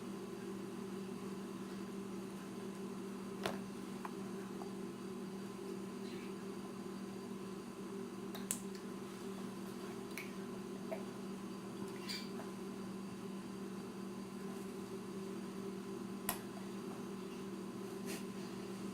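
Steady low background hum with about six brief, sharp clicks and taps spread out over the stretch, the small sounds of a baby feeding himself.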